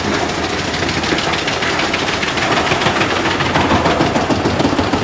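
Albach Diamant 2000 wood chipper's large diesel engine running steadily, with a dense fast rattle over the engine noise.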